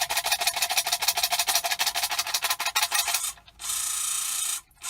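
Vintage Kenner Darth Vader TIE Fighter's electronic engine sound effect from its small tinny speaker, coming back to life as the toy is shaken. For about three seconds it pulses rapidly, about ten times a second. Then it cuts out twice briefly and runs as a steadier hiss-like roar.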